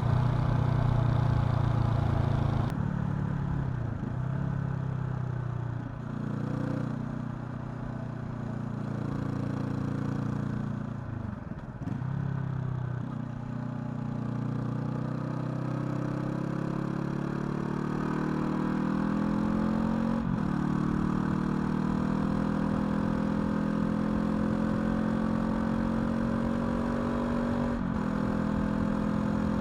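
Honda CL500's parallel-twin engine under way. The revs dip and pick up a few times, then climb steadily for several seconds, with upshifts about twenty seconds in and again near the end.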